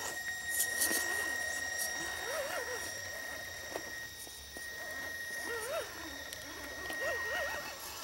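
Axial SCX10 Honcho RC rock crawler's electric motor and gears whining, the pitch rising and falling in short swells as the throttle is worked on the climb. A steady thin high whine runs beneath, with a few sharp clicks of tyres and stones on rock.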